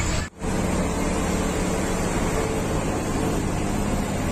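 Steady engine and road noise of a moving bus, heard from inside the cabin, with a brief dropout about a third of a second in.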